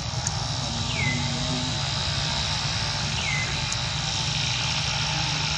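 Steady outdoor background noise with a low rumble, and a short high falling chirp heard twice, about two seconds apart.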